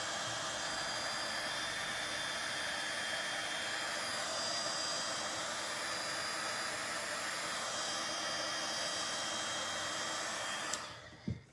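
Craft heat gun blowing steadily, with a faint whine in its rush of air. It stops near the end, with a click and a short knock.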